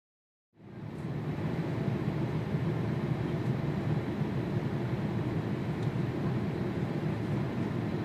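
Steady in-flight roar of a jet airliner heard from inside the cabin, fading in about half a second in and then holding even.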